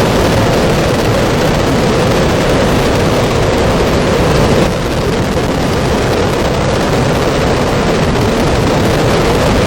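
Loud, steady roar of rushing floodwater, dropping slightly partway through and cutting off abruptly at the end.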